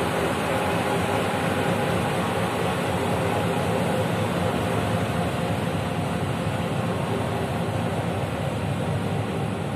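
Passenger train running along the track: a steady rumble of wheels on rails, with a faint whine that fades out about halfway through.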